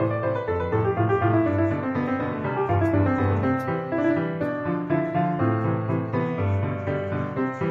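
Background piano music, a steady flow of notes over a moving bass line.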